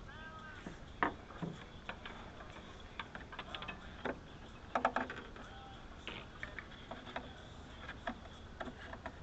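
Scattered light clicks, taps and small knocks of tools and parts being handled during car repair work, with a couple of short squeaks.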